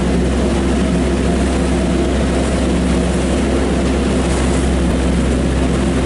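Small fishing boat's engine running steadily under way, a constant low drone, with a steady hiss of water and wind over it.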